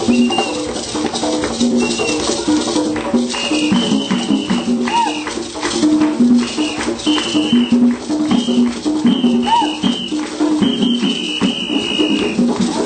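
Live music with a shaker rhythm under a melody of short, repeated notes.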